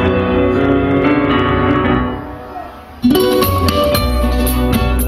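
Music: one piece fades out about two seconds in, and a new, faster piece starts abruptly about three seconds in with a quick, even rhythmic pulse.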